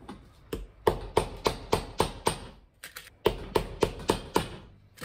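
Cobbler's hammer driving iron hobnails into the wetted leather sole of an army parade shoe on a metal last: quick runs of sharp, ringing metal taps, about five a second, with short pauses between runs.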